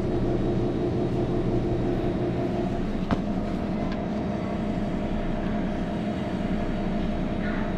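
Refrigeration condensing unit running, a steady hum of several low tones, with one sharp click about three seconds in.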